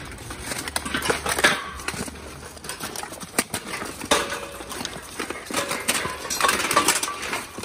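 Steel armor in an armored-combat melee: irregular clanks and knocks of plate and weapons striking, with metal fence panels rattling as fighters are pressed against them.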